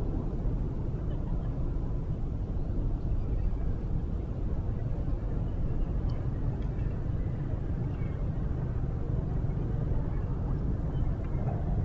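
Steady low rumble of wind buffeting the microphone, with a few faint high chirps.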